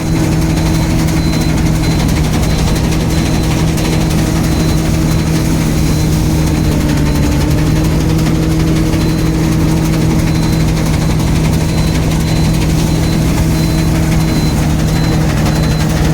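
Combine harvester running steadily at working speed, a loud, even engine drone that dips slightly in pitch for a moment about halfway through.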